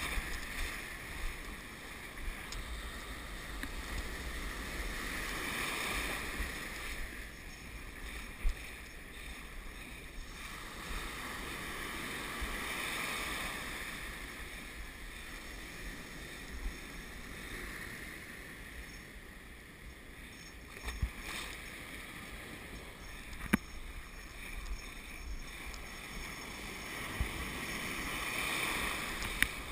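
Ocean surf breaking and washing around the legs, swelling and fading as each wave comes through, with wind rumbling on the microphone. A few sharp knocks stand out, the loudest about eight seconds in and again past twenty seconds.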